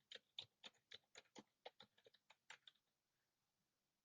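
Faint typing on a computer keyboard: a quick, irregular run of about fifteen key clicks that stops about three seconds in.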